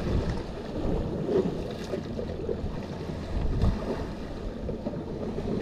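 Wind gusting on the microphone as a fluctuating low rumble, over the wash of the sea on the rocks.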